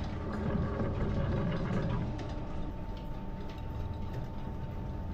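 Belt-driven Drummond lathe running steadily, a low mechanical hum with faint ticks, dropping a little in level about two seconds in.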